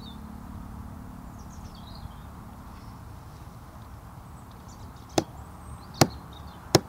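Faint small birds chirping over a low steady background, then three sharp clicks about a second apart near the end.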